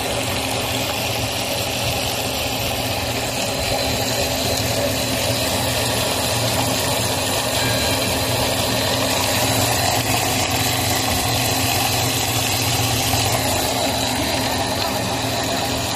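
Corn puff snack extruder running steadily: a continuous machine drone with a thin, steady high whine over it.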